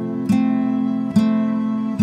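Background music of strummed acoustic guitar chords, a new chord struck about every second and left ringing.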